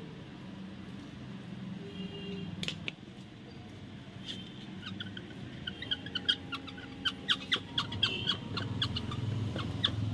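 Hand tool, likely a small hammer, tapping a rubber patch onto a punctured football bladder laid on a wooden block, pressing the patch down to bond. A run of sharp, slightly ringing taps, a few a second, begins about halfway through.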